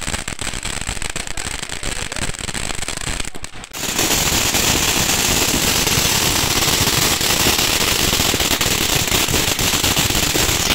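Ground fountain fireworks spraying sparks: dense crackling with many sharp pops. About four seconds in, the sound changes abruptly to a louder, steady hissing crackle from another fountain.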